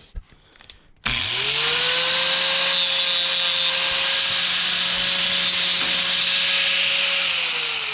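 Electric angle grinder spinning up about a second in, then running steadily at full speed with a hissing grind before it begins to spin down near the end.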